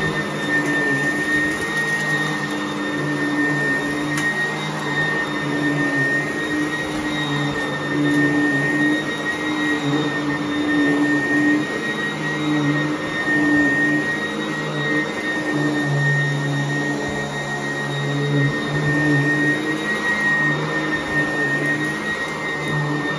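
Sanitaire vacuum cleaner running steadily while vacuuming carpet, with a steady high motor whine over a lower hum that wavers slightly.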